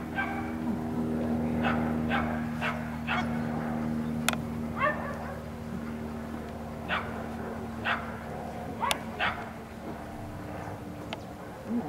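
German shepherd dog giving short yips and barks, about one a second, over a steady low hum that is strongest in the first few seconds.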